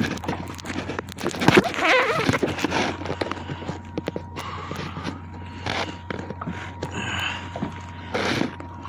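A hooked catfish being brought up on a fishing line beside a kayak, with clicks and knocks of handling throughout; near the end the catfish splashes at the surface.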